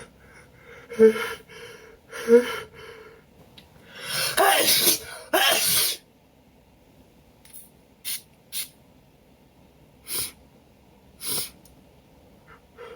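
A man's hitching gasps, two short pitched breaths about a second apart, build into a loud sneeze about four seconds in that ends in a second, sharper burst just before six seconds. Several short sniffs follow.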